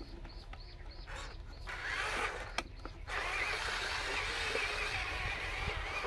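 Huina 1573 RC dump truck's electric drive motor and gearbox whining as the truck pulls away over dirt, starting a little under two seconds in and running steadily after a brief dip about three seconds in.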